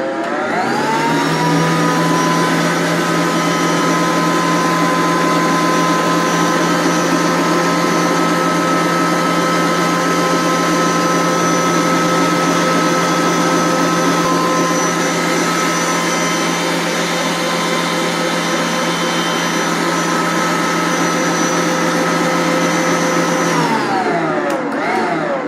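Stand mixer motor running at high speed, beating hot cooked caramel icing with egg white. It speeds up in the first second, runs steadily, and winds down to a stop about a second before the end.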